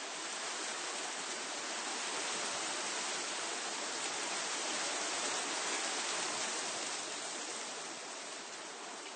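Wind blowing through tree foliage, a steady rustle of leaves that swells a little in the middle and eases off near the end.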